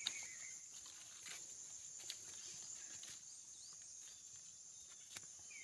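Faint rural ambience: insects chirring steadily in a high, even drone, with scattered soft clicks and a short falling chirp at the start.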